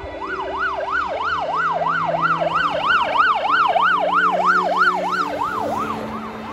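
Police car siren on a fast yelp, sweeping up and down about three times a second, getting louder as the car approaches and passes, then fading away near the end.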